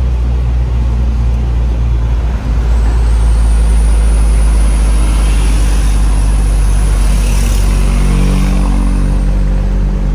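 Heavy dump truck loaded with sand, its diesel engine running steadily under way with a deep rumble. A thin high whine comes in about three seconds in and fades out near the end.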